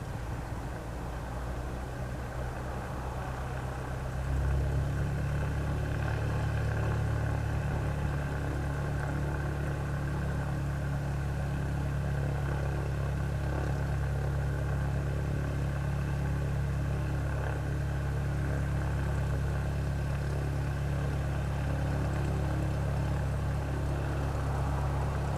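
Cessna 172S Skyhawk SP's four-cylinder piston engine running for its takeoff on the runway. The engine sound steps up about four seconds in, as takeoff power comes on, then holds steady.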